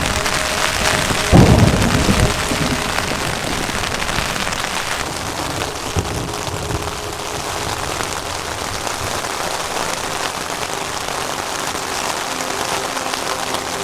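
Rain falling steadily in a thunderstorm, with a loud thunderclap about a second in that rumbles away over the next second.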